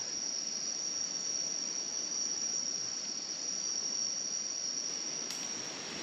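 Chorus of night insects in the rainforest: a steady high-pitched drone that holds without a break.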